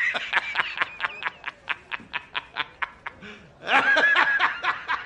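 A man laughing hard in a high pitch: a fast run of short ha-ha pulses, about six a second, breaking into a long, shrill cry about three and a half seconds in.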